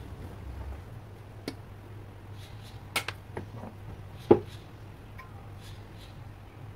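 Cooking utensils knocking against a stainless steel wok of fried noodles: a few sharp clinks, the loudest about four seconds in, over a steady low hum.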